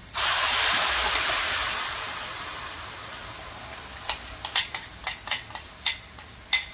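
Tomato puree poured into hot ghee and fried onion paste in a stainless steel kadai: a loud sizzle that starts suddenly and fades away over about three seconds. From about four seconds in, a metal spoon scrapes and taps against a glass bowl, sharp clicks a few times a second, as the last of the puree is scraped out.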